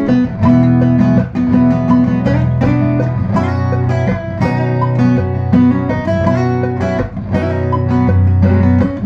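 Acoustic guitar strummed, quick repeated strokes on chords that change about every second.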